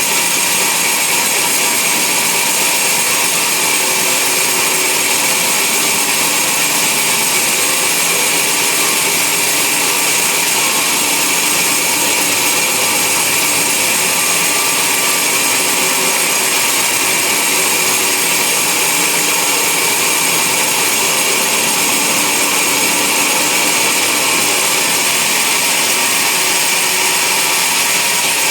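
Band sawmill running steadily, its blade cutting through a log.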